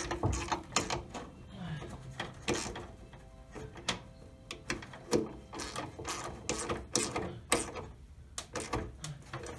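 Irregular metal clicks and light knocks as the mounting bolts are worked through the firewall to hold a VW Super Beetle's brake master cylinder.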